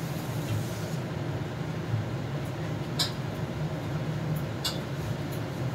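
Steady low kitchen hum while a lidded pan of vegetables cooks on the stove, with two faint ticks about three seconds in and a second and a half later.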